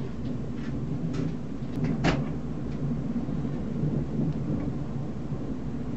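Low rumble of thunder in a rainstorm, with a sharp click about two seconds in and a few fainter ticks.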